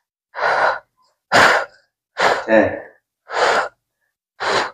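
A person breathing hard: five sharp, noisy breaths about a second apart, one of them with a short voiced grunt.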